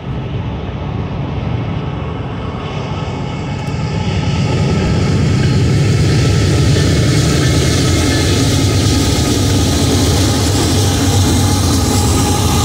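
Heavy diesel locomotive engines running with a steady low drone, growing louder about four seconds in as the locomotives come closer.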